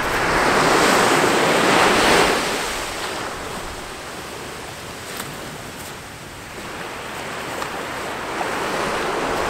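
Small sea waves gently breaking and washing onto the beach, swelling loudest in the first two seconds, easing off, then building again near the end.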